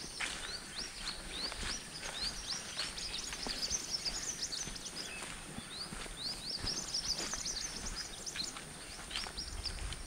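Forest birds chirping: many short, quick calls overlapping one another, busiest in the middle, over a steady high hiss, with footsteps on the trail.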